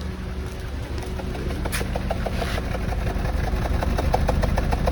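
Honda Civic FD's 1.8-litre four-cylinder engine idling rough, heard at the exhaust as a low rumble with regular pulses that grow louder about a second and a half in. It runs as if on three cylinders: a misfire that the owner puts down to a spark plug or ignition coil.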